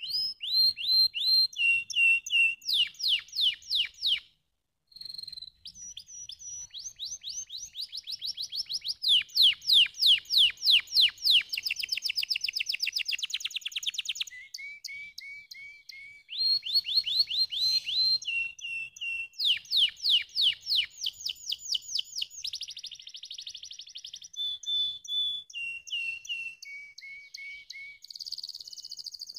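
Domestic canary singing: a continuous song of fast trilled phrases, each a quick run of one repeated note before it switches to the next, with a short pause about four seconds in.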